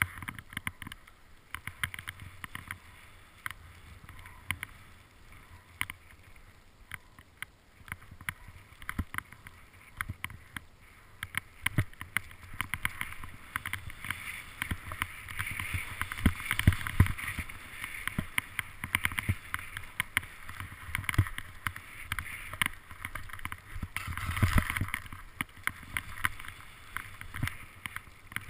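Skis swishing and scraping through powder snow on a downhill run, with wind on the microphone and frequent small knocks and clicks. The swishing grows louder through the second half and is loudest a few seconds before the end.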